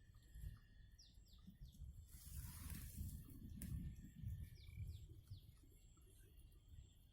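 A bird calling faintly, two short runs of three quick high descending notes, over a low rumble of wind.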